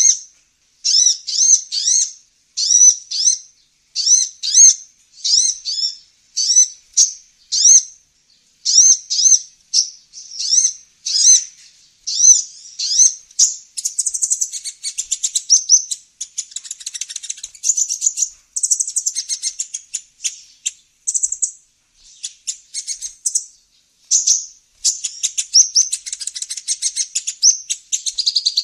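A sunbird (the 'kolibri ninja') calling: short sharp chirps repeated about once a second, turning about halfway through into faster, busier twittering, played as a lure call.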